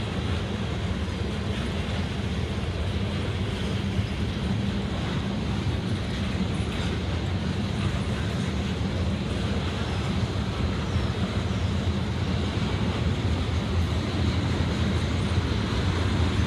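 Train of railroad tank cars rolling past on the track: a steady low rumble that grows a little louder near the end.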